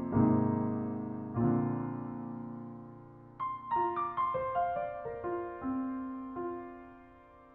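Soft piano music: two sustained chords, then a run of single notes that rings out and fades.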